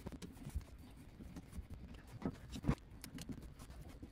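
Worm-drive hose clamps being fitted onto a rubber radiator hose and tightened with a screwdriver: light, irregular clicks and knocks of metal and plastic, with two louder knocks about two and a half seconds in.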